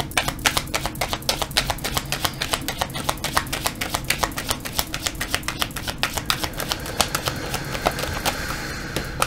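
Tarot deck being shuffled by hand: a quick, steady run of light card clicks and slaps as the cards drop from one hand to the other.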